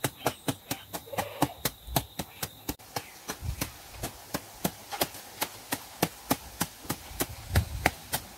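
Machete chopping grass close to the ground in quick, even strokes, about four a second.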